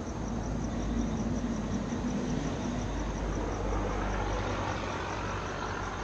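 Crickets chirping in a steady, evenly pulsing trill over a low, continuous rumble that grows brighter in the second half.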